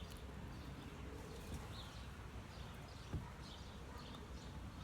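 Faint outdoor ambience: small birds chirping now and then over a steady low background noise, with one brief sharp knock about three seconds in.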